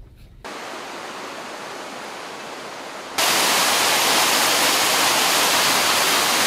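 A quieter steady hiss, then, about three seconds in, the even rush of a waterfall pouring over rocks cuts in suddenly and holds.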